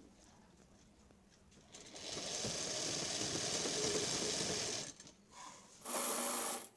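Sewing machine stitching a fall onto a saree's edge: a steady run of about three seconds starting about two seconds in, then a second short run near the end.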